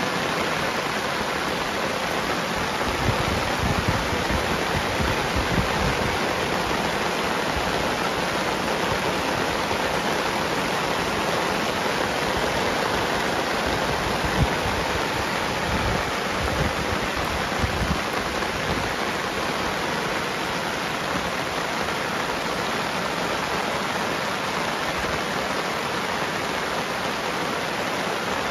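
Heavy rain pouring down in a steady, dense hiss, with a few low thumps about three to six seconds in and again mid-way.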